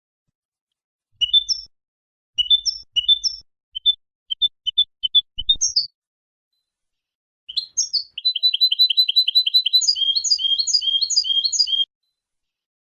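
European goldfinch singing: short twittering phrases of high chirps, then after a brief pause a long run of quick repeated notes that slows toward the end.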